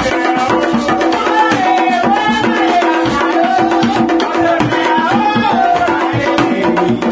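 Haitian Vodou ceremonial music: hand drums beating a steady, dense rhythm under a lead voice singing a chant into a microphone.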